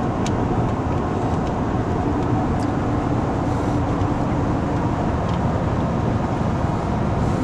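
Steady road and engine rumble inside the cabin of a car driving along a highway, with a few faint ticks.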